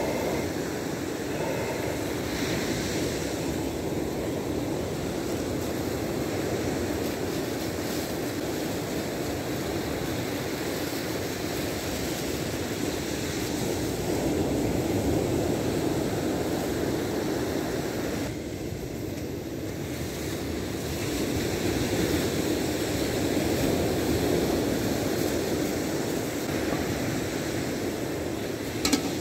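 Ocean surf breaking on the shore: a steady rush that slowly swells and eases. A single sharp knock sounds near the end.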